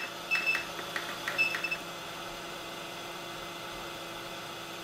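Hot-air rework station giving a run of short high beeps, with a few button clicks, in the first two seconds as its temperature setting is stepped. Under it the hot-air gun's fan runs with a steady whir.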